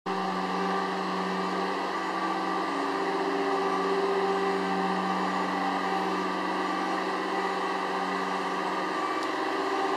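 Electric scissor lift's motor and hydraulic pump running with a steady hum, its lowest tone dropping out near the end.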